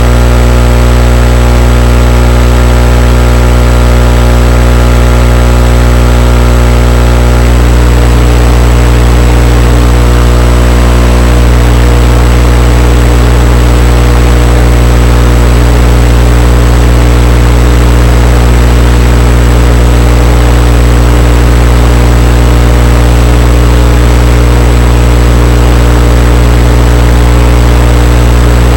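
Loud, steady droning hum from an FPV quadcopter's onboard recording, made up of a deep hum and a stack of steady tones that hold their pitch throughout. The higher tones drop away about seven seconds in.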